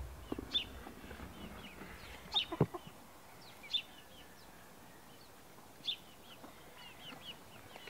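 Hens clucking and chirping softly: short high calls every second or two, with a quick run of small calls near the end. A single knock sounds about two and a half seconds in.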